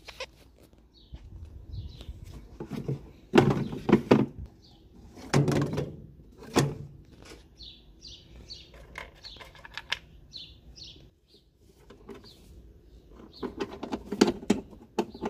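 A series of knocks and clunks, clustered a few seconds in and again near the end, with small birds chirping repeatedly in between.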